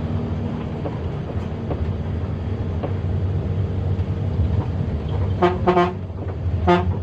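Intercity bus engine running steadily under way, with three short horn toots near the end: two in quick succession, then a third about a second later.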